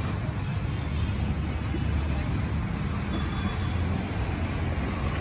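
Steady low rumble of street traffic, with no sharp sounds standing out.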